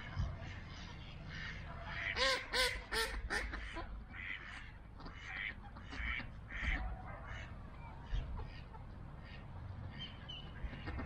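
A flock of mallards quacking on the water: a quick run of loud quacks about two seconds in, then scattered softer quacks and calls.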